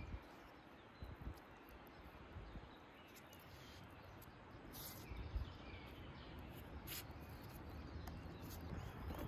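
Faint outdoor ambience: a steady low hiss with two short high-pitched sounds, one about five seconds in and one near seven seconds, and a little low rumble.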